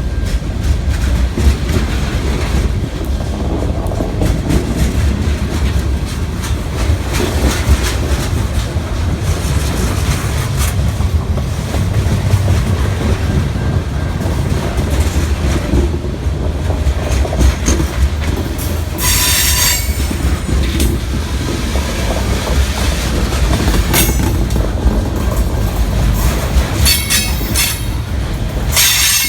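Freight train cars rolling past with a steady low rumble and clacking wheels. Several short, high-pitched wheel squeals come in the second half.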